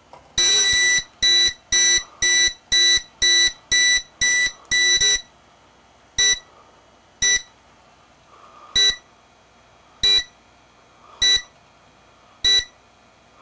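Edwards EST Fireshield fire alarm panel's built-in buzzer beeping as the panel is being programmed: a run of about nine beeps at roughly two a second, then single short beeps about once a second.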